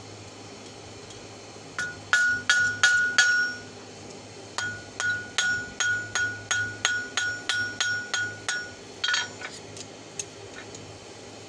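Hand hammer striking a red-hot steel wrench end on an anvil, forging fork tines. A short run of about six blows comes about two seconds in, then after a pause a steady run of about a dozen blows at roughly three a second, each leaving a high ring that carries between strikes, and a few lighter blows near the end.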